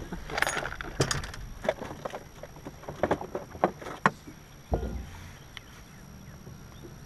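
Quick clicks, clinks and knocks on a bass boat's deck as a caught bass and tackle are handled, then one dull low thump a little past the middle.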